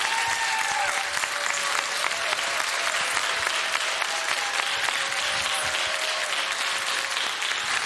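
Studio audience and jury applauding steadily, a dense, continuous clapping.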